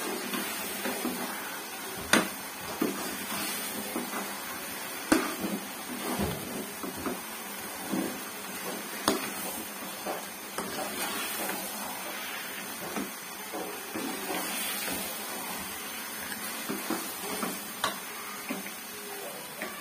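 Steel spoon stirring and scraping thick semolina-and-jaggery halwa in a metal kadai, with irregular clacks of the spoon against the pan over a steady hiss.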